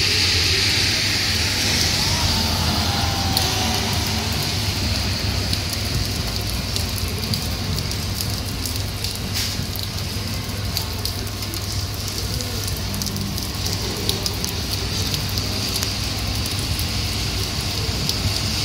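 Very heavy rain falling on a street and nearby surfaces: a steady hiss, dense with crackling drop impacts close by.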